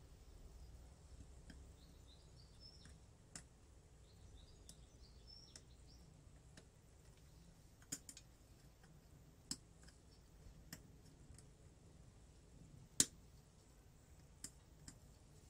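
Scattered small metallic clicks as a circlip is worked onto the kickstart gear shaft of a two-stroke engine crankcase with circlip pliers. Several clicks are spread through a near-silent background, and the sharpest comes about thirteen seconds in.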